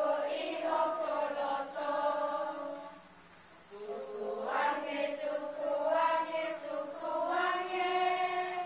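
A group of children singing a Tongan song together, with a short lull between phrases about three seconds in.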